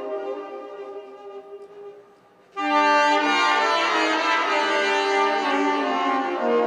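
Saxophone and piano playing a slow instrumental passage: the notes die away to a brief near-silent pause about two seconds in, then a loud chord of long held notes comes in and carries on.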